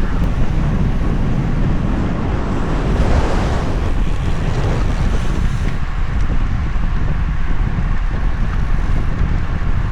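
Wind buffeting the microphone of a camera riding along on a moving bicycle: a steady, loud low rumble, with a brief swell in the hiss about three seconds in.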